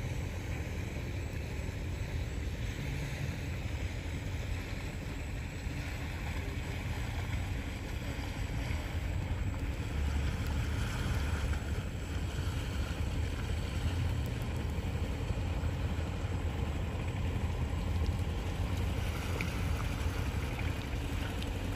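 Small long-shaft outboard motor on a wooden river boat running steadily underway, a continuous low drone.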